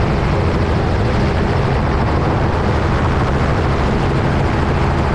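Helicopter in flight heard from on board: steady rotor and engine noise with a low hum.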